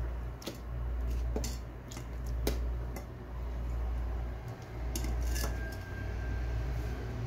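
A metal ladle clinking against a metal pot of gulab jamun in sugar syrup as they are stirred and basted: a few scattered sharp clinks over a steady low hum.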